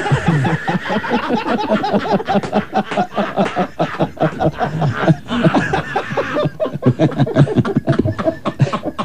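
People laughing, a long unbroken run of rapid pulsed laughter.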